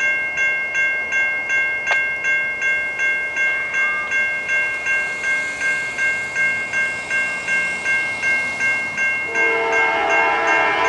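Railroad grade-crossing bell ringing steadily at about two to three strikes a second. About nine seconds in, a locomotive air horn joins it with a sustained chord, the train's warning as it nears the crossing.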